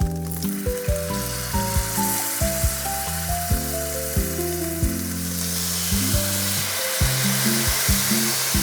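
Tofu sizzling in a frying pan, the sizzle growing louder about halfway through, over background music with a steady beat.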